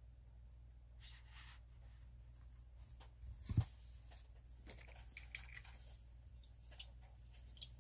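Faint handling noises: a soft thump about three and a half seconds in, then a few light clicks and rustles, over a low steady hum.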